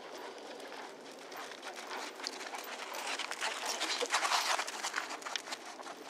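Hoofbeats of a Thoroughbred horse ridden on arena sand, a run of muffled thuds and scuffs that grows louder in the middle, around three to five seconds in.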